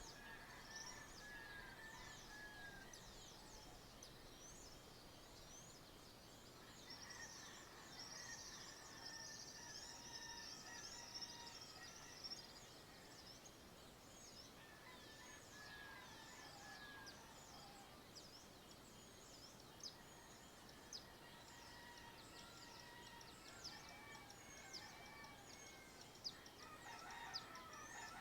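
Faint dawn chorus of small birds chirping, with distant roosters crowing several times.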